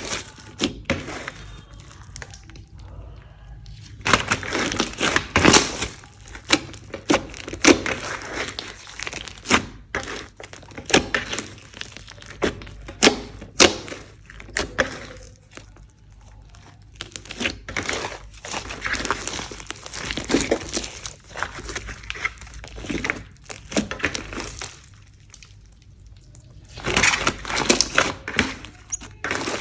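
Hands squishing and stretching slime: a dense, irregular run of sharp clicks and pops, easing off briefly twice.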